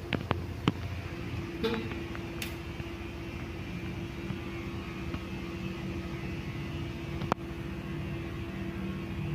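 Cosmos 56-inch (140 cm) industrial ceiling fan running with a steady motor hum. A few short clicks come in the first second and one sharp click about seven seconds in.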